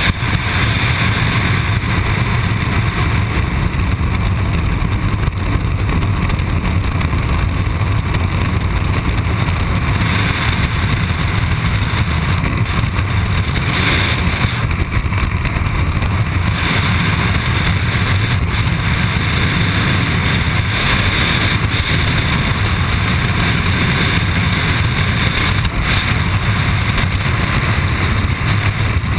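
Freefall wind rushing over a body-mounted camera's microphone, a steady loud roar with no let-up.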